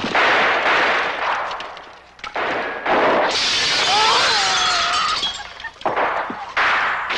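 Action-scene sound effects: long bursts of shattering glass and crashing as a machine cabinet is shot apart in a shower of sparks, with a short lull about two seconds in and wavering tones in the middle.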